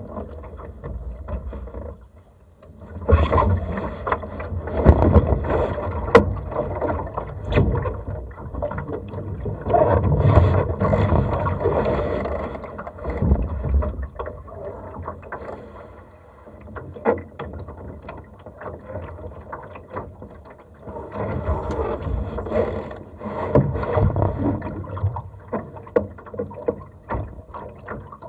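Water splashing and gurgling along the hull of a Laser dinghy under sail, swelling and easing in surges of several seconds, with scattered short clicks and knocks.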